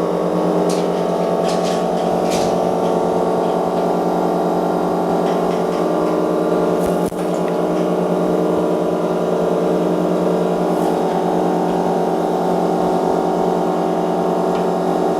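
Steady machine hum, even and unchanging, with a few faint light clicks over it.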